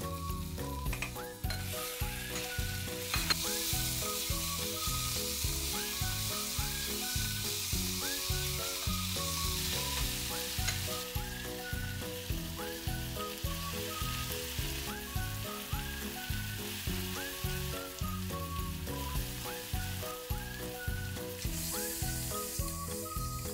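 Vegetables sizzling in hot mustard oil in a stainless steel pot while being stirred with a wooden spatula. The sizzle is strong for the first half, dies down around the middle and comes back strongly near the end. Under it runs light, upbeat background music with a whistled melody.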